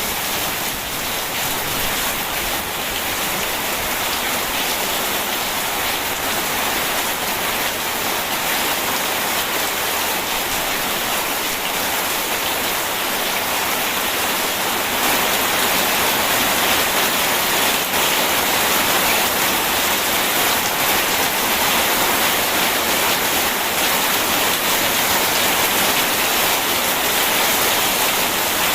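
Steady rain, a continuous even hiss of falling water with no thunder, growing slightly louder about halfway through.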